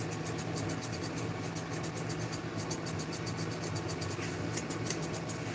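Grooming scissors snipping through a toy poodle's head coat in quick, light cuts, over a steady low hum.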